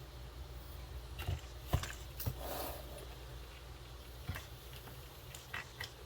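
Scattered small clicks and taps of hand tools and small parts being handled while a radio-control truck is worked on, about half a dozen sharp ticks, over a low steady hum.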